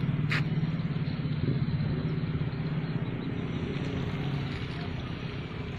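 Small engine running steadily with a low, even pulsing, its sound slowly fading.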